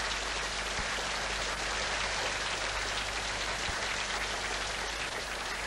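A large audience applauding, a dense steady patter of many hands that thins out near the end.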